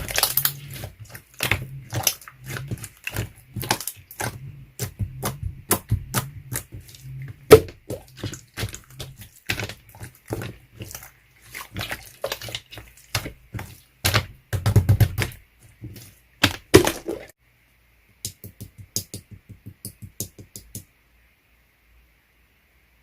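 Slime being squeezed and poked by hand, making a rapid, irregular run of sticky pops and crackling clicks. The popping stops about three-quarters of the way through, and a few fainter, evenly spaced clicks follow.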